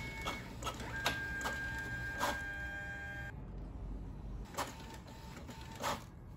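Brother DCP-T420W ink-tank inkjet printer printing a page: mechanical clicks and whirring as the paper feeds and the print head runs, with a steady whine from about a second in that stops a couple of seconds later.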